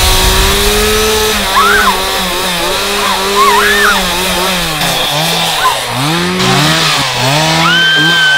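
Two-stroke chainsaw engine revving up and down over and over. A woman screams near the end.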